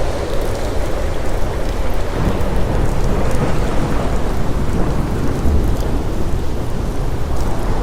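Steady rain with a continuous low rumble of thunder underneath.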